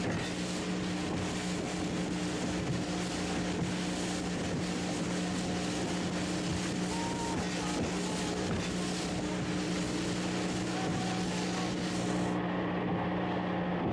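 Motorboat engine running at a steady pitch while under way, over the hiss of water and wind rushing past the boat. The high hiss drops away suddenly about twelve seconds in.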